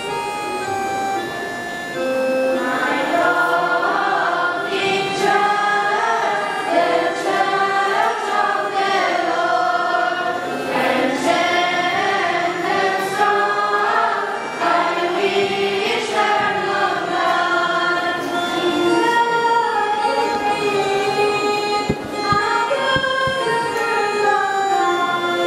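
Children's choir singing a hymn together in unison, the voices swelling louder about two seconds in.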